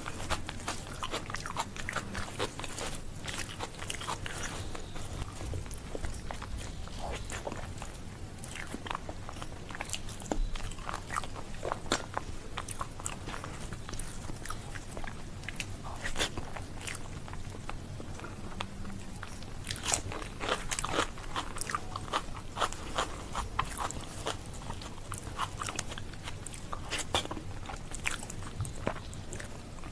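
Close-miked chewing and wet mouth sounds of someone eating soft rice mashed with bharta, with many short smacks and clicks throughout, and the squish of rice being mixed by hand.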